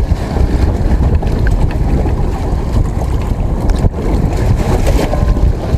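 Wind buffeting the microphone: a loud, steady low rumble with no voices.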